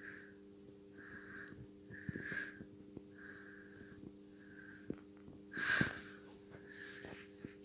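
Ginger cat breathing through its nose with a soft, whistly wheeze on each breath, about once a second, and one louder sniff about three-quarters of the way through.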